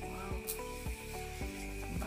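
Background music with a steady beat about twice a second, over a rubbing noise as hands work a raw whole chicken in a steel tray.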